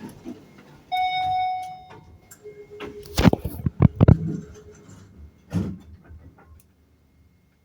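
A single electronic beep held for about a second, then a cluster of loud knocks and thumps a couple of seconds later and one more near the end.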